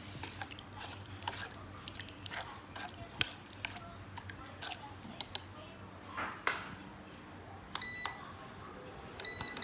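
Wooden chopsticks clicking and knocking against a pan as sugar-soaked palm seeds and pineapple are stirred, followed near the end by two short groups of electronic beeps from an induction cooktop's touch controls as the power is set.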